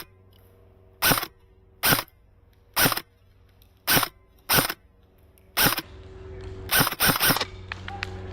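Airsoft rifle firing single shots, each a sharp crack. There are about ten, roughly one a second, ending with three in quick succession. A low hum runs underneath, and a rising hiss of background noise builds in the last couple of seconds.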